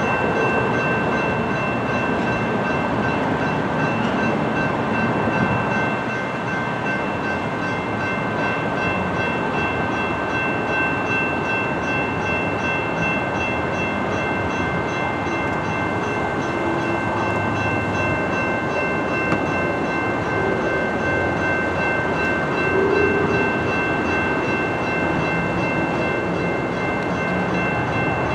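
General Signals Type 2 electronic railroad crossing bells ringing steadily as the crossing is activated, over a constant rumble of rail and road noise.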